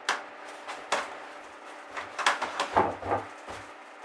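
A slab of upholstery foam being handled and set down onto a wooden settee base: scattered knocks and rubbing, with the heaviest thump about three seconds in.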